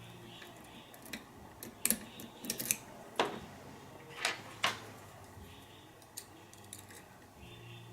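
Lock pick clicking and tapping against the pins inside a lock cylinder during single-pin picking: a scattered series of short, sharp metallic clicks, bunched in the middle of the stretch.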